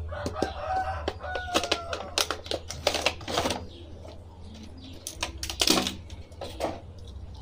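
Clear plastic blister tray and cardboard box of an action figure being handled: a run of crinkling, crackling plastic clicks, with louder rustles about three seconds in and again near six seconds.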